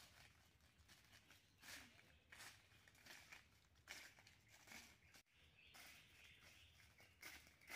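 Faint footsteps of a person walking through dry fallen leaves, soft crunches coming irregularly about every half second to second.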